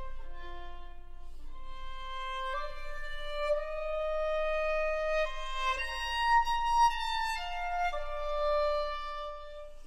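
Violin playing a slow melody of long held notes that change pitch step by step.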